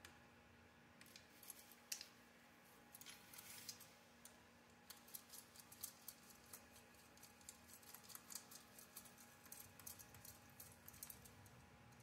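Faint, irregular clicking and light rattling as screws are turned by hand with a screwdriver into plastic RC buggy suspension arms and parts are handled. The clicks come sparsely at first and grow denser about halfway through.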